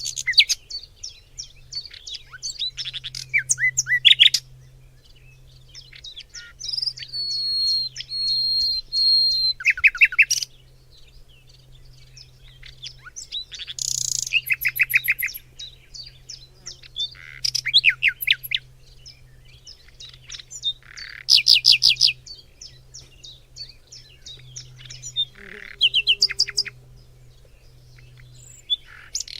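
Forest birdsong: several songbirds singing in turn, with rapid series of high chirps, trills and a few held whistled notes, in phrases of a few seconds separated by short pauses.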